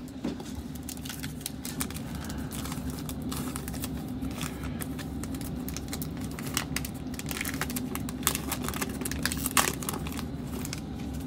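Plastic wrapper of a Panini Prizm basketball card pack crinkling and tearing as it is opened by hand, an irregular run of small crackles throughout.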